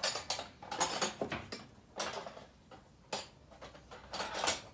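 Small metal tools and parts clinking and rattling as they are handled, in short irregular clatters, the loudest near the end.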